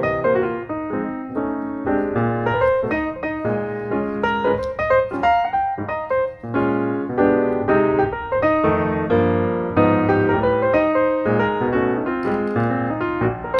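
Piano music, a lively run of many quick notes over a steady low accompaniment.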